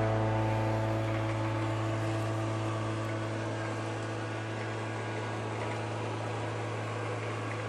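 Taurus Striker Mini robot vacuum running: a steady motor and suction-fan hum with a constant low drone, as the last notes of a guitar song fade out in the first second.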